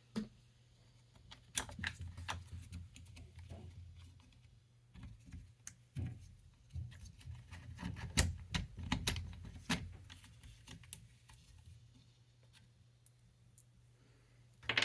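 Scattered small metallic clicks and rattles of screws and hand tools being handled while a chainsaw's cover screws are taken off.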